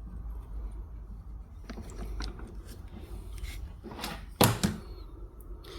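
Homemade transformer spot welder firing on the soldering-iron element's wire at 50% power: a single sharp crack with a brief buzz about four and a half seconds in, followed by a smaller one. A few light clicks come before it as the parts are handled.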